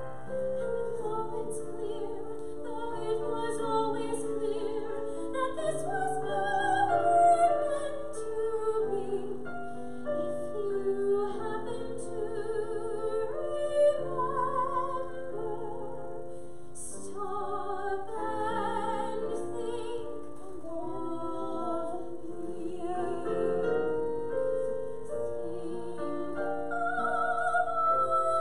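A woman singing a solo in a classical, operatic style with strong vibrato, accompanied by held chords on a Yamaha digital piano.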